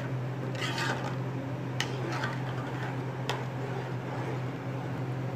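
Metal spoon stirring thick, simmering kheer in a metal pot and scraping it down from the sides, with a few sharp ticks of the spoon against the pot. A steady low hum runs underneath.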